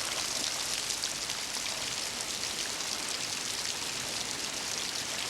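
Steady rain falling: an even hiss flecked with a dense patter of drops.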